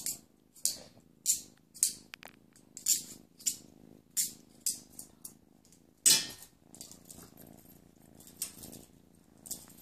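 Kitten purring faintly and steadily while it plays, with a quick series of short scratchy rustles from its paws and fur working against a hand and clothing, the loudest about six seconds in.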